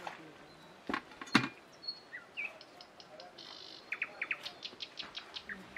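Small birds chirping, with a fast buzzy run near the middle and a string of quick repeated chirps toward the end. About a second in come two knocks half a second apart, the second the loudest sound, as a steel pot with a plastic lid is handled and set down.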